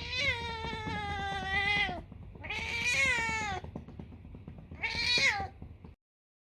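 Domestic cat meowing three times: a long, drawn-out meow of about two seconds, a shorter one, and a brief last one.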